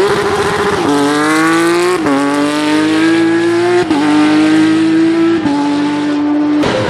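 Porsche 911 rally car's flat-six engine at full throttle, accelerating away through the gears: the engine note climbs in each gear and drops sharply at four upshifts, then stops abruptly near the end.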